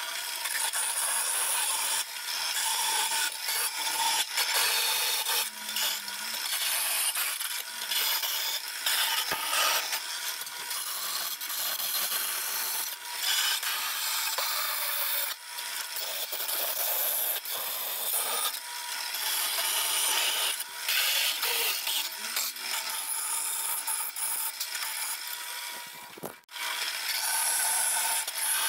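Vertical bandsaw cutting thin aluminum sheet: a steady, high rasping of the blade through the metal over the running saw. The cut breaks off briefly near the end as the sheet is shifted.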